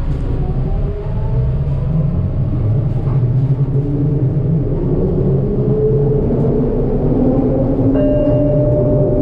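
Detroit People Mover car (UTDC ICTS, linear induction motor drive) running on its elevated guideway: a steady low rumble with a motor whine that rises slowly in pitch as the car gathers speed. A steady higher tone joins near the end.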